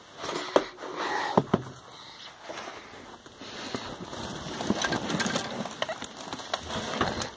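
Rustling and handling noise from a handheld camera carried close against hair and clothing, with scattered small knocks and clicks as the person moves.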